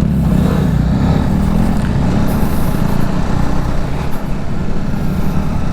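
Motorcycle engine running steadily under way on a dirt track, a continuous low rumble with a haze of wind and ground noise over it.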